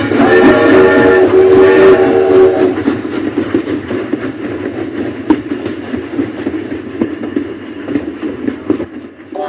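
Battery-powered toy train sounding its electronic horn in two blasts, then running on with a rattling, chugging noise that fades over the following seconds.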